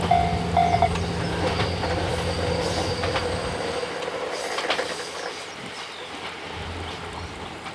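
Series 87 Twilight Express Mizukaze diesel train running past, wheels clicking over rail joints and its low engine hum fading as it moves away. The level crossing's electronic bell rings in a repeating pattern until about a second in, then stops.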